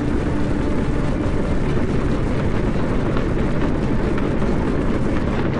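Saturn V rocket's five F-1 first-stage engines at liftoff: a loud, steady, dense low rumble.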